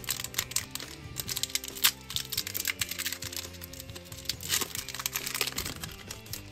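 Foil wrapper of a Panini Chronicles football card pack being torn open and crinkled by hand: a dense run of irregular crackles, the sharpest a little under two seconds in, over steady background music.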